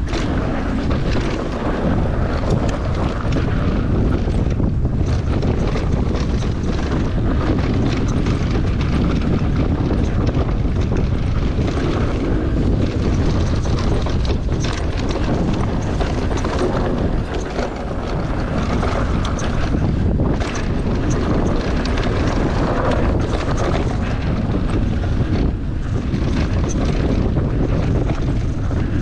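Wind buffeting the camera microphone during a fast mountain-bike ride down a dirt trail, with steady tyre and trail noise and many short knocks and rattles from the bike over rough, rocky ground.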